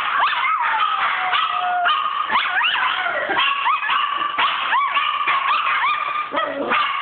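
Dog howling and yipping: one long falling howl at the start, then a string of short rising yelps, about two a second.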